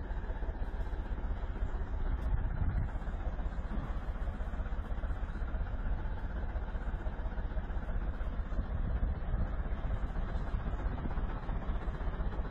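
Wheel loader's diesel engine running steadily, a low rumble.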